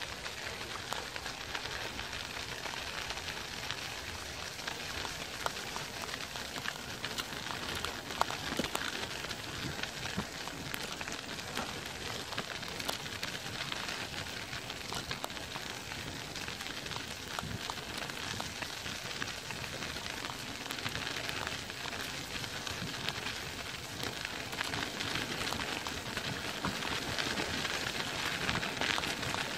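Steady crackling rush of riding along a gritty path: tyres rolling over grit and leaves, with wind on the microphone.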